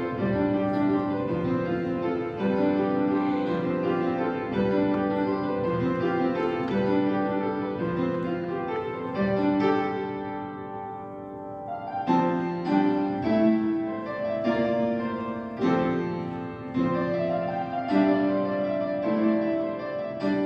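Background music: piano playing a melody over steady chords, thinning out for a moment about halfway through before the notes pick up again.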